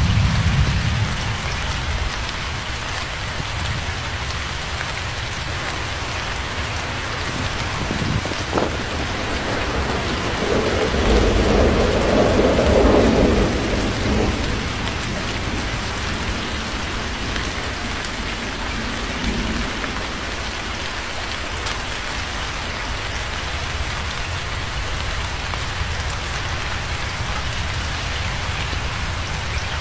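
Steady heavy rain with thunder: a low rumble at the start, a sudden crack about eight seconds in, and a louder rolling rumble a little before the middle that fades by about fourteen seconds.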